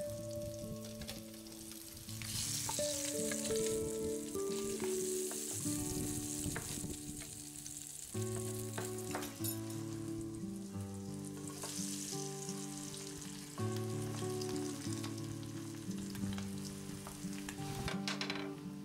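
Meat sizzling as it fries in a metal pan, with stirring and a few sharp clicks of utensils or the pan being handled. Background music plays throughout.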